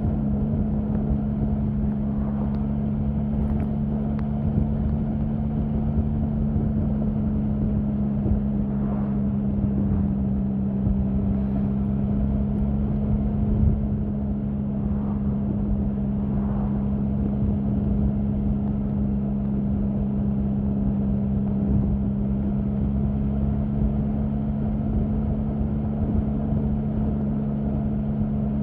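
Triumph Sprint 1050's three-cylinder engine running at a steady, unchanging speed.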